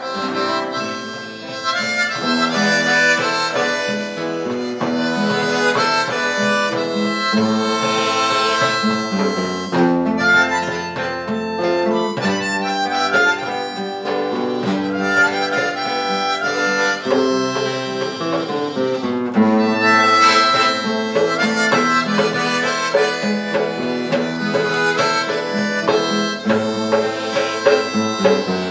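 Harmonica playing a melody, cupped in the hands, over acoustic guitar accompaniment; the melody breaks off briefly twice, about a third and two-thirds of the way through.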